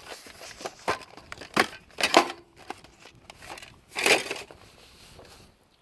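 Scrap items being handled and shifted about: several short clatters and rustles, the loudest about two seconds in and about four seconds in.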